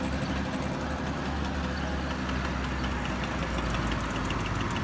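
1964 Vespa scooter with a sidecar, its small two-stroke single-cylinder engine running steadily as it rides by.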